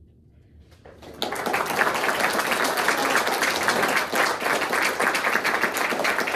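A quiet pause, then a small audience breaks into applause about a second in, clapping steadily after the end of a wind trio piece.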